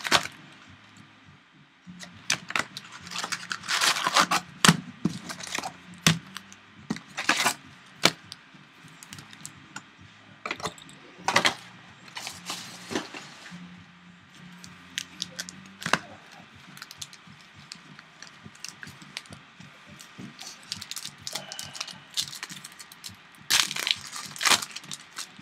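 Foil trading-card packs (2013 Topps Strata football) being handled and torn open by hand, with sharp crackles and tearing of the wrappers in irregular bursts.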